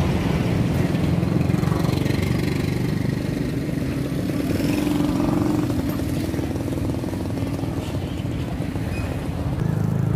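Street traffic with motorcycle engines running and passing close by, over a steady low rumble. An engine note rises about halfway through.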